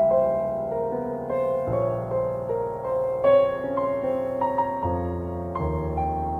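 Slow, soft piano music: sustained bass notes changing every second or so under a gentle melody of held notes.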